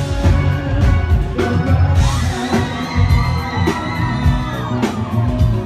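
Pop song playing with drums, with a crowd cheering and whooping over the music.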